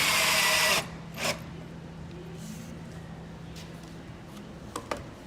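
Power drill driving a screw into cedar wood. The motor runs loud and then stops just under a second in, gives one short burst a moment later, and a couple of light clicks follow near the end.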